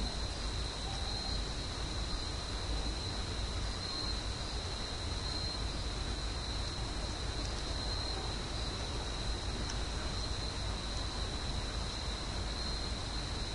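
Steady background hiss with a constant high-pitched whine and a low hum: the recording's own noise floor, with no distinct event.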